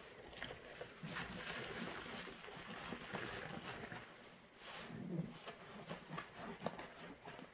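Wet sponges full of Pine-Sol and Pinalen suds squeezed and wrung in gloved hands, squelching and crackling, with soapy liquid dripping and splattering back into a plastic tub. It comes in two bouts of squeezing.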